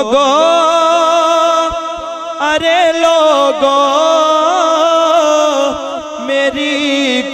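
A man singing a naat into a microphone, drawing out long ornamented notes with a wavering pitch and short breaks between phrases.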